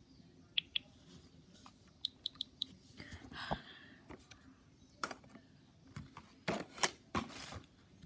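Toy groceries being handled in a plastic shopping basket: light plastic clicks and taps, a brief rustle about three seconds in, and a few louder knocks near the end.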